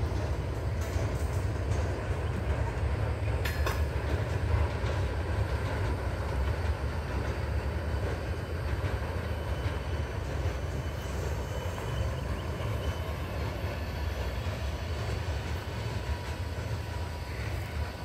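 Freight train boxcars and a tank car rolling past, their wheels on the rails making a steady low rumble, with faint wheel squeal and a sharp click about three and a half seconds in.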